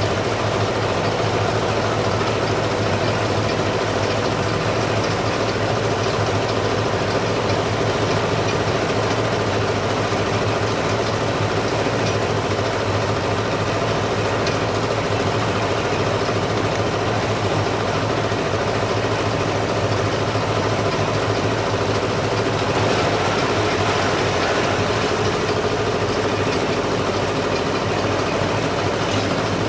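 A heavy engine running steadily at idle: a constant low hum over even mechanical noise, with no change in level.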